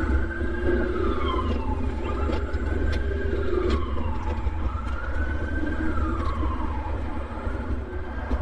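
Emergency vehicle siren wailing, its pitch rising and falling slowly about three times, over a steady low rumble of street traffic.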